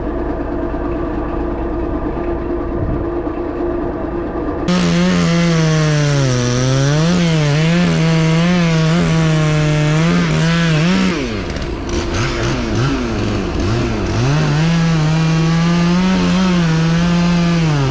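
Two-stroke chainsaw with a 20-inch bar cutting into a thick tree trunk. After a steady engine hum, about five seconds in the saw opens up and cuts, its pitch dipping and recovering as the chain bogs in the wood. Around eleven seconds the revs fall and wander briefly, then it cuts steadily again.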